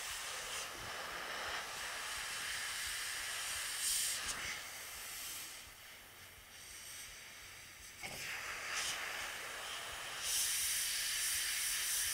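Iwata airbrush hissing as it sprays white paint in passes across a metal flame shield. The hiss eases off around the middle, picks up again about two-thirds of the way in, and is strongest near the end.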